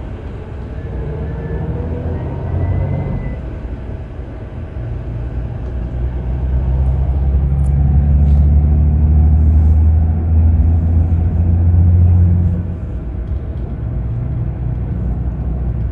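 Scania K360 coach's diesel engine running with a low drone. The drone grows louder about five seconds in, holds for several seconds, then drops back about three-quarters of the way through.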